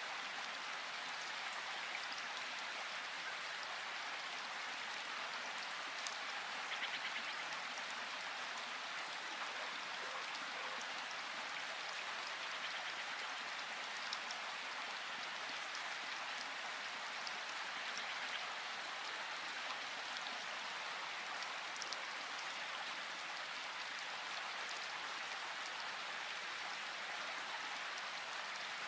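River water rushing and splashing steadily, with small droplet-like ticks scattered through it.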